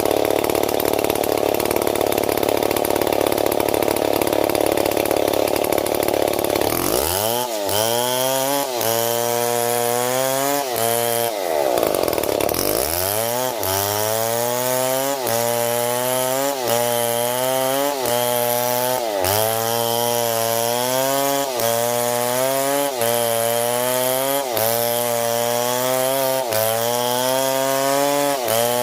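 STIHL MS 070 two-stroke chainsaw running. About seven seconds in it goes into the cut, and from then on its pitch rises and dips in a steady rhythm about every second and a half as the saw is worked through the wood.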